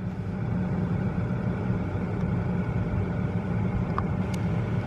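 A car running, with a steady engine hum and road noise. A brief faint beep comes about four seconds in.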